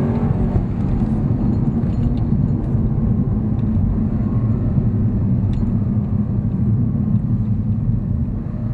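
Porsche Panamera Turbo's twin-turbo V8 and Fabspeed exhaust (200-cell cat downpipes, X-pipe resonator delete, stock mufflers) heard from inside the cabin as a steady low rumble, with no drone.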